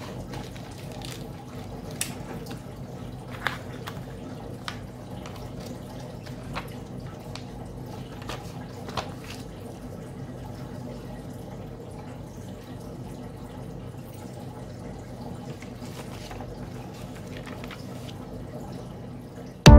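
Scattered soft clicks and light rustles from hands handling a paper instruction sheet and small metal kit parts on a desk mat, over a steady low hum.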